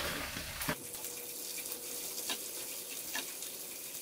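Dried small anchovies and sliced garlic deep-frying in a pan of hot oil: a steady sizzle. A few light clicks sound from the pan.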